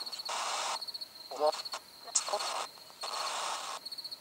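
A cricket chirping in a steady pulsing trill. Over it come three bursts of static-like hiss, each under a second long, with short garbled voice fragments between them.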